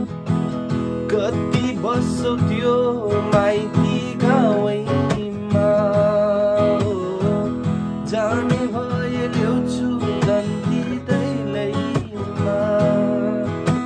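A man singing while strumming chords on an acoustic guitar fitted with a capo.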